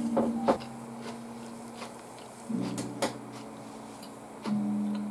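Soft background music of held low notes that change every couple of seconds, with a few sharp clicks of a spoon and chopsticks against a ramen bowl near the start and another about three seconds in.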